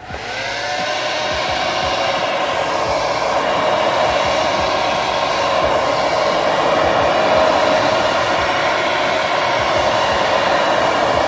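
Handheld hair dryer switched on and blowing steadily, its motor whine rising briefly as it spins up, then holding: drying hair bonding glue on freshly glued weave wefts so it turns tacky.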